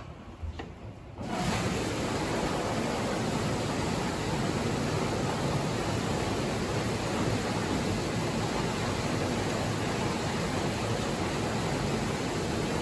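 Steady rush of water that starts abruptly about a second in and holds at an even level: the water ballast of a water-powered funicular car flowing through its tank system.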